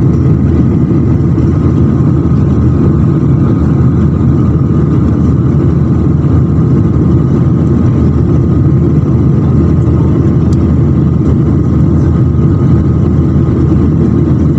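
Cabin noise of a jet airliner in flight, heard from a window seat by the wing: a steady, loud, low roar of the engines and airflow with a faint steady whine above it.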